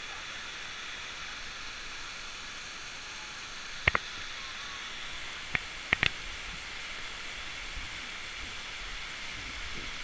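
Steady rush of a waterfall cascading over rock, with a few sharp clicks about four and six seconds in.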